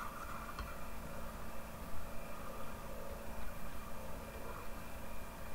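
Steady low background hum and hiss with a faint high-pitched whine mixed in.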